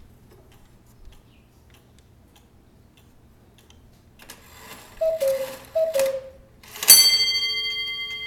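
Antique Black Forest cuckoo clock by Johann Baptist Beha striking the hour, its pendulum ticking faintly at first. The movement whirs into action, the cuckoo pipes call 'cuck-oo' twice, each call a higher note falling to a lower one, and then the large bell on top of the clock is struck once and rings on, fading slowly.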